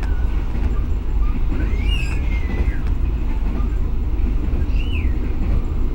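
Passenger coach of the Argo Wilis express train running at speed, heard from inside: a steady low rumble from the wheels and car body. A few short high squeals rise and fall about two seconds in and again near five seconds.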